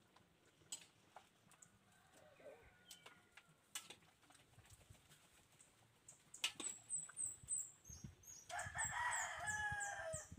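A rooster crows once near the end, a long pitched call and the loudest sound here. Before it come a few scattered sharp clicks and some brief high bird chirps.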